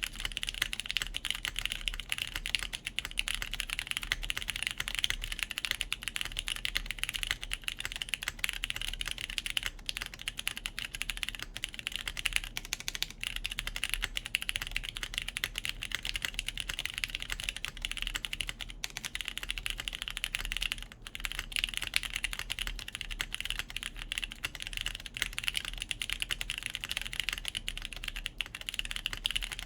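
Steady, continuous typing on a JJW Cloudline V2 mechanical keyboard in its top-mount configuration, with lubed Cherry MX Brown switches, a full polypropylene plate and GMK Sloth keycaps: a dense, unbroken stream of keystroke clacks.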